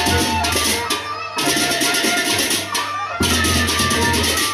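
Sasak gendang beleq gamelan playing. Massed cemprang (small hand cymbals) clash in a fast, tight rhythm over metallophone melody, big drums and gong. The cymbals stop together for a moment about a second in and again at the end.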